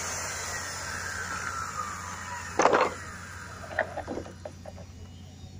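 Electric circular saw's blade coasting down after a cut through plywood, a falling whine that fades over about two seconds. Then a loud wooden clatter about two and a half seconds in, and a few lighter knocks as the cut plywood is handled.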